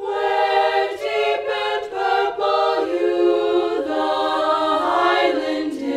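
Teenage student choir singing together, holding long notes that move from one pitch to the next every second or so.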